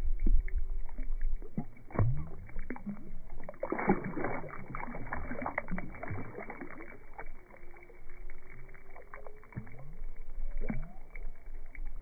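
Slowed-down recording of a largemouth bass being released in shallow pond water: dull, low-pitched splashing and swishing as the fish thrashes and swims off, heaviest about four seconds in.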